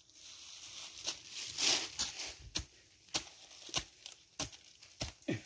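Footsteps crunching on dry leaves and loose soil, a step about every half second, after a rustling scrape in the first couple of seconds.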